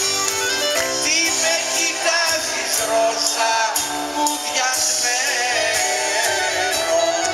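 Live band playing: piano, bass and drums under a lead melody line that wavers with vibrato.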